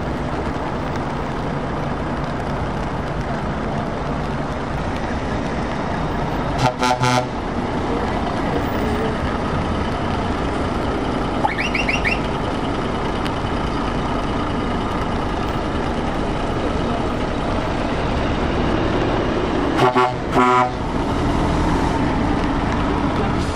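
Convoy of heavy lorries rolling slowly past, diesel engines running steadily. A loud truck horn blast comes about seven seconds in, a short high-pitched toot about halfway, and two more horn blasts in quick succession near the end as a Scania V8 tractor unit passes.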